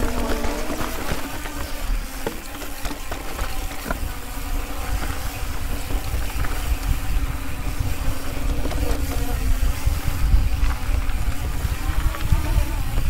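Mountain bike rattling and knocking over loose rock on a descent, with wind buffeting the microphone and a steady hum running underneath.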